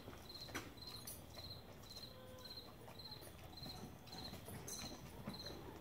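A cricket chirping steadily, about two high-pitched chirps a second, with a few faint clicks over it.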